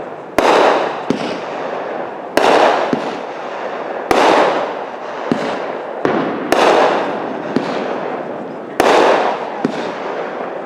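Fireworks going off one after another, about one every two seconds: each a sharp bang that trails off in a fading hiss, followed by a smaller pop.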